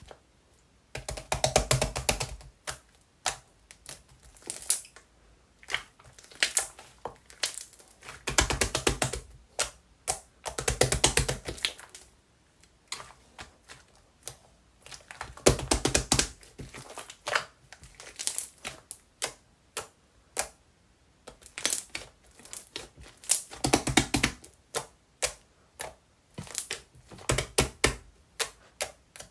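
Slime being squeezed and kneaded by hand, giving rapid crackling clicks as small air pockets pop, in bursts of a second or two with short pauses between.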